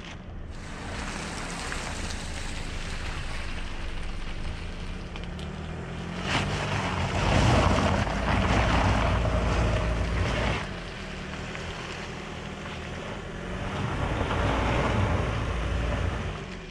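A 2020 Toyota RAV4 TRD Off-Road's 2.5-litre four-cylinder engine running under load as the SUV climbs a loose dirt bank, its pitch shifting. Tyre noise on loose gravel and dirt runs over it, loudest from about six to ten seconds in and swelling again near the end.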